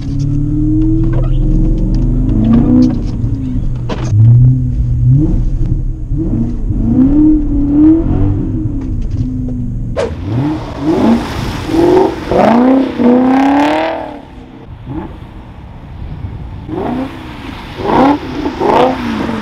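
BMW E39 M5's straight-piped V8 heard from inside the cabin while driving, its pitch rising and falling with the throttle. About ten seconds in, the sound switches to the exhaust heard from outside the car, revving in quick rises and falls, then quieter for a couple of seconds before more revving near the end.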